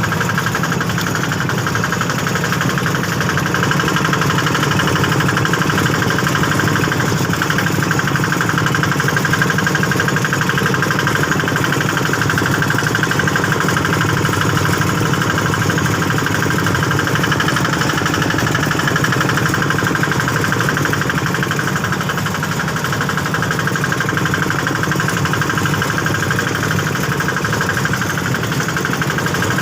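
A small engine running steadily with a fast, even pulse and no change in speed.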